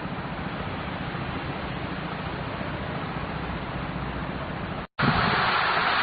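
Steady rushing outdoor noise of wind. About five seconds in it cuts out for a moment and returns louder, with wind buffeting the microphone.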